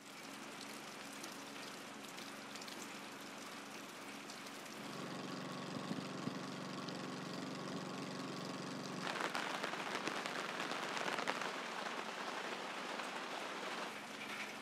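Rain falling steadily, louder from about five seconds in and again from about nine, with a low steady hum underneath.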